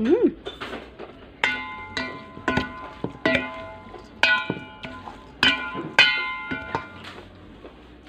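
Metal spoon knocking against a stainless steel mixing bowl while tossing a pork salad. About eight clanks, each leaving the bowl ringing briefly.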